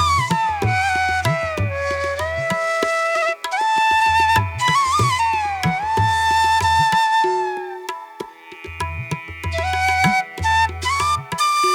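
Japanese-inspired background music: a flute melody of held notes that slide and bend in pitch, over low, repeated drum beats.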